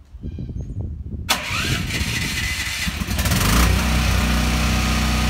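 Portable generator inside a closed shed enclosure starting up, then settling into a steady run from about three and a half seconds in. It is muffled a little by the enclosure.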